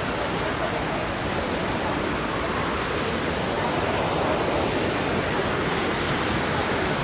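The swollen, fast-flowing Chenab river rushing past in spate: a steady noise of turbulent water surging and churning.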